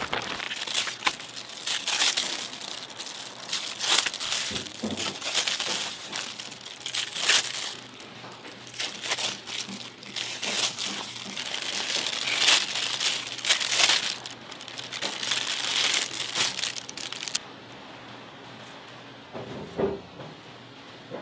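Packaging crinkling and rustling as it is handled, in irregular bursts. About 17 seconds in it drops suddenly to a quieter background.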